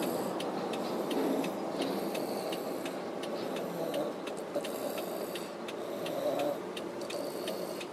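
A toddler snoring loudly while asleep in a car, breaths swelling every second or two over the steady hum of the car's cabin.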